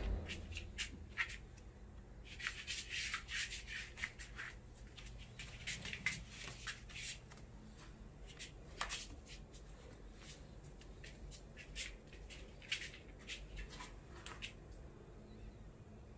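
Golden retriever puppy's claws clicking on a hard laminate floor as she walks, in irregular clusters of short ticks.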